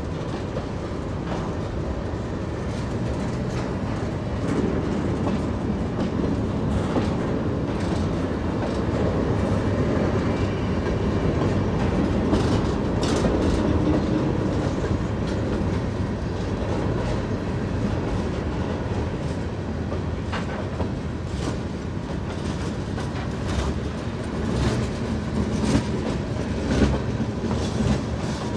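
Freight train cars rolling past, a steady rumble of steel wheels on rail with scattered sharp clicks as the wheels cross rail joints.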